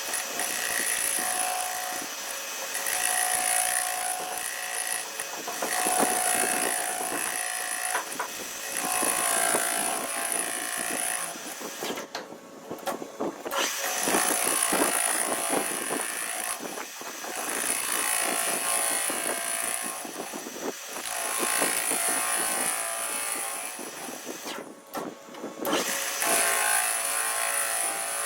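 CNC lathe turning metal with a carbide cutting tool: steady machine running with a high hiss from the cut that comes and goes in stretches of a few seconds, breaking off briefly twice.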